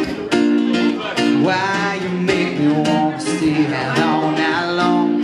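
Acoustic guitar strummed in an up-tempo, funky country song, with a man singing into a microphone over it from about a second and a half in.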